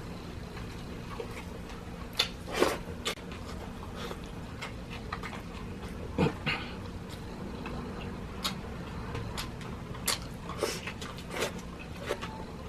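Close-up eating sounds: short wet mouth noises and clicks of chewing and eating, scattered irregularly, with the loudest at about two and a half seconds and six seconds in, over a steady low hum.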